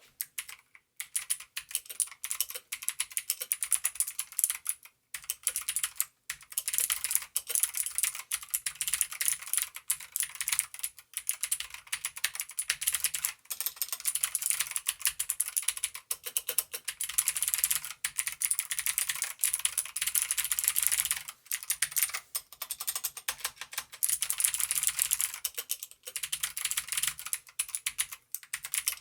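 Fast continuous typing on a mechanical keyboard with Outemu blue (clicky) switches: a dense run of sharp clicks, with brief pauses now and then.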